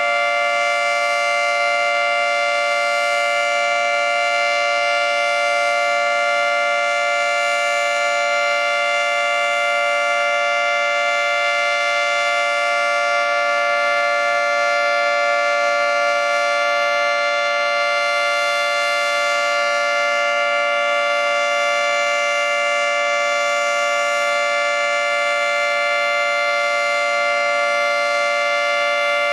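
Federal Signal 2T22 two-tone outdoor warning siren sounding a steady alert, a held chord of two tones with no rise or fall in pitch, during its monthly test.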